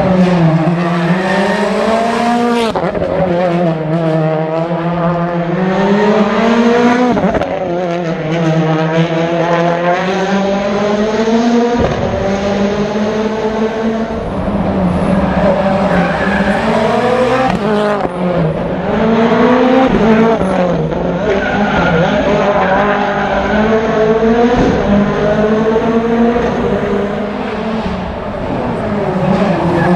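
Rally car engine running hard through a stage, revs repeatedly climbing and then dropping sharply at gear changes, then rising again as it pulls out of corners.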